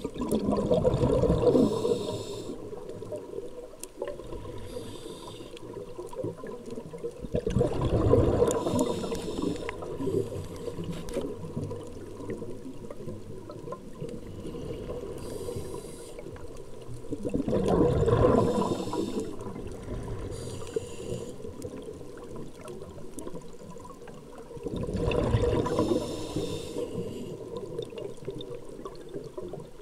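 Scuba diver breathing through a regulator underwater: four bursts of exhaled bubbles, one about every eight seconds, with a fainter high hiss in between.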